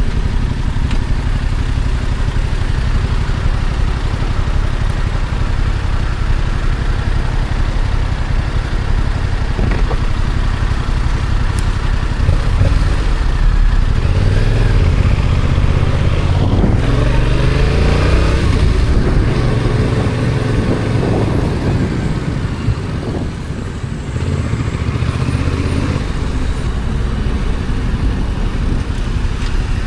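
Stock Yamaha XSR700's 689 cc parallel-twin engine running while riding through city streets, with the revs rising and falling through a stretch around the middle and easing off briefly a little after.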